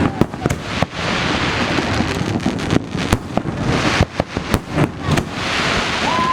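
Large display fireworks launched about 50–100 metres away: a rapid, irregular string of sharp bangs over a steady rush of noise, with a short whistle near the end.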